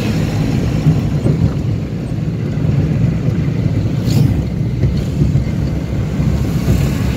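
Steady low road and engine rumble heard inside a moving car's cabin at highway speed, with a brief whoosh about four seconds in.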